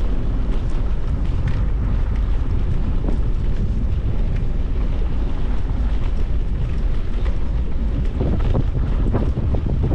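Wind buffeting the microphone, a loud, steady low-pitched blustering noise, with a few brief crackles near the end.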